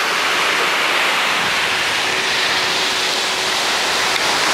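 Steady hiss of ocean surf washing onto a sandy beach.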